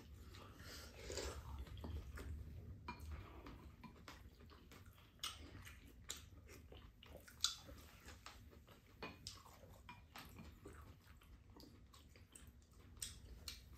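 Quiet close-up eating sounds: chewing and mouth noises, with scattered light clicks of utensils against bowls, the sharpest a little past halfway.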